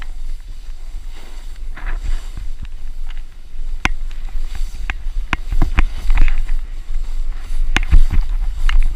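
Wind buffeting the microphone of a pole-mounted action camera as a snowboard slides down through fresh snow, with a steady low rumble. Irregular sharp knocks and clicks come through, louder and more frequent from about halfway on.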